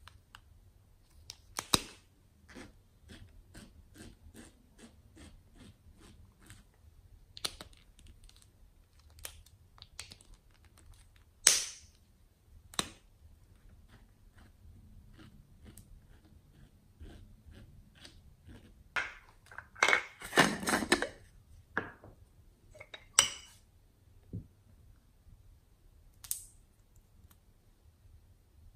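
Handling sounds of plastic clay piping tubes: scattered light clicks and taps, a few sharper clicks now and then, and a denser cluster of noisy handling sounds about twenty seconds in.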